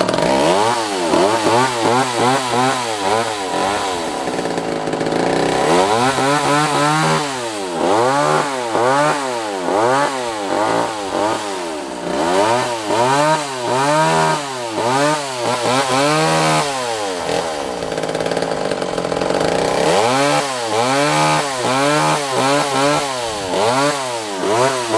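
Vintage McCulloch Mac 120 two-stroke chainsaw running and being revved up and down in quick, repeated blips, with a couple of spells of steadier running between the bursts.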